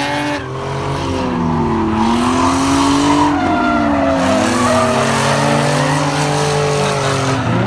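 Drift cars' engines revving up and down, more than one at a time, with tires squealing as the cars slide sideways through the course.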